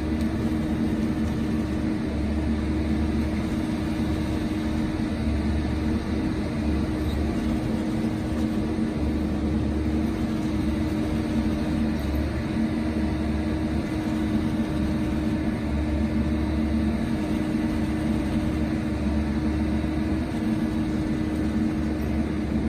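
Steady engine hum from pipe-bursting equipment running during a pipe burst, with a low throb that comes and goes every second or two.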